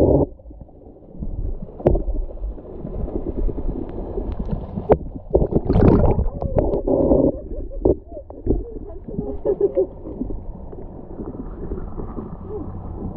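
Muffled underwater sound picked up by a camera held below the sea surface: water sloshing and gurgling, a few sharp knocks against the camera, and a louder churning splash about six seconds in.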